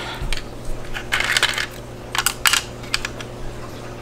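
Light clicks and a brief scrape of small pieces being picked up and set down on a hard work surface, a few separate taps with a short rustling scrape about a second in.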